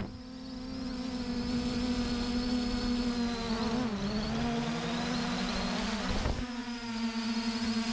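A steady, pitched buzzing hum that dips briefly in pitch about four seconds in and again around six seconds in.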